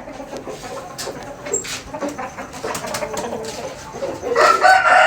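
Aseel chickens calling, with a louder, drawn-out call starting about four seconds in.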